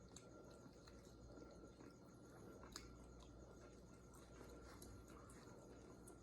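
Near silence with faint chewing and small mouth clicks of someone eating, one click a little louder about three seconds in.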